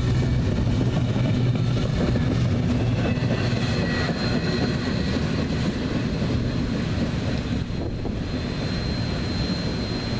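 Double-stack intermodal freight cars rolling past on the rails, a steady rumble of wheels that eases off about halfway through as the end of the train goes by and draws away.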